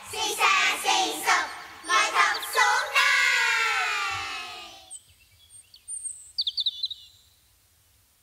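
A solo woman's voice sings a short phrase that ends in one long note, sliding down in pitch and fading out about five seconds in. Then come a few faint high bird-like chirps, and after that it is near quiet.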